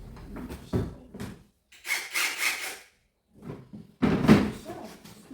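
A few separate rubbing and scraping strokes with short gaps between them, the loudest about four seconds in.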